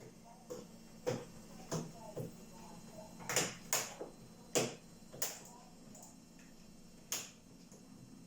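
Irregular sharp clicks and knocks of small hard parts being handled and fitted during work on a refrigerator door, about ten in all, the loudest bunched in the middle, over a low steady hum.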